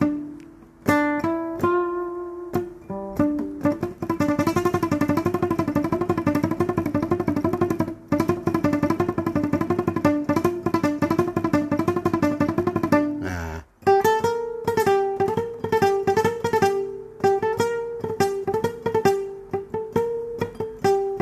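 Nylon-string classical guitar played with a pick as a picking exercise. Single notes are picked one at a time at first, then a fast, even stream of picked notes wavering between neighbouring pitches, a brief break about 13 seconds in, then quick repeated picked phrases a little higher.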